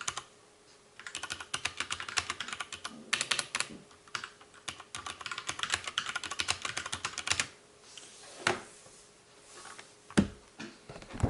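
Fast typing on mechanical keyboards with Cherry MX Brown and MX Black switches: a rapid clatter of keystrokes after a brief pause at the start, thinning after about seven and a half seconds to a few single louder key presses.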